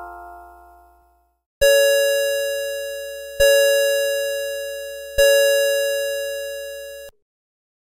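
Citizen Karakuri Music Box Concert wall clock: the last notes of its music-box melody fade out, then three identical bell-like chime tones about two seconds apart, each dying away, striking three o'clock.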